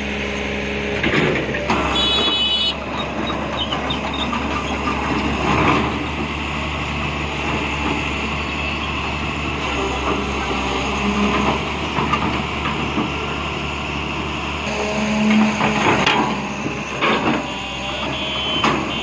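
Caterpillar 320L excavator's diesel engine running steadily, with occasional knocks and clanks. Short high-pitched beeping sounds briefly about two seconds in and again near the end.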